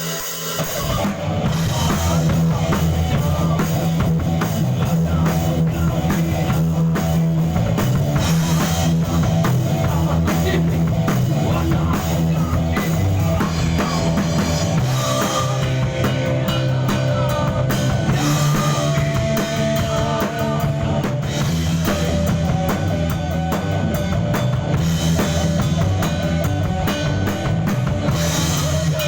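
Live rock band playing in a studio: drum kit with bass drum, electric guitar and bass, running continuously with no singing.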